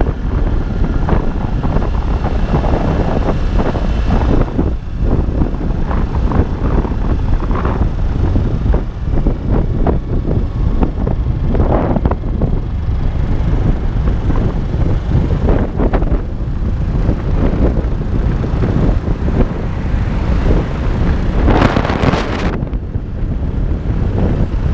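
Heavy wind buffeting the microphone of a camera on a moving motorcycle, over the motorcycle's engine running. A louder gust comes near the end.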